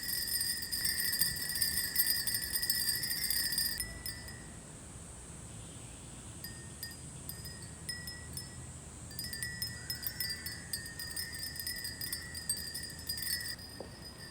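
High, bell-like chimes ringing and tinkling in many small overlapping strikes. They break off abruptly about four seconds in, come back in scattered tinkles, and swell again later on.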